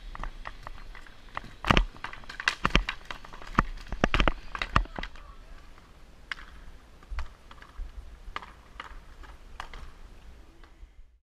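Roller hockey play: a run of sharp clacks and taps of sticks and puck on the wooden rink floor, thick in the first five seconds, then sparser and fainter.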